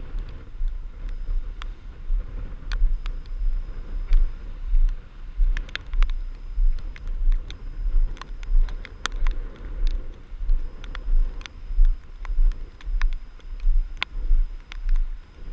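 Storm wind buffeting the microphone: a loud low rumble that pulses in irregular gusts about once or twice a second, with scattered sharp ticks through it.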